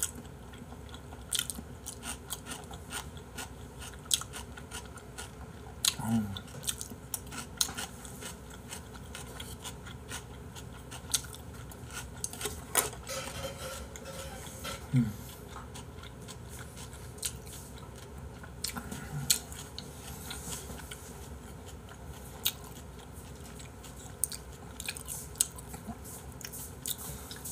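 A person chewing raw beef close to the microphone, with many wet mouth clicks and smacks, and a few brief sounds of voice in between.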